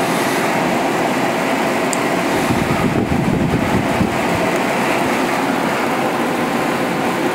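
Heavy rain pouring down, a steady dense hiss, with a low rumble swelling briefly around the middle.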